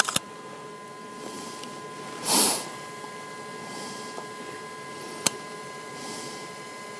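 Digital camera shutter clicking: a quick double click at the start and a single sharp click about five seconds later. A steady faint electronic whine runs underneath, and there is a brief breathy hiss about two seconds in.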